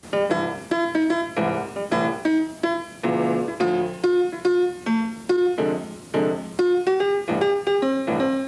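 Piano music, a quick run of struck notes that starts suddenly.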